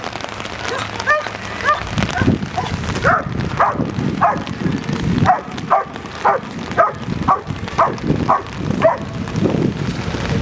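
Black German Shepherd barking repeatedly on the leash, about two barks a second, at a decoy holding a bite sleeve: protection-training barking.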